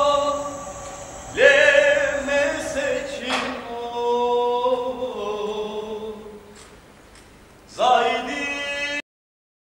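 Slow choral music: voices hold long, sustained chords, shifting every second or two. A fresh chord swells in near the end, then the sound cuts off abruptly.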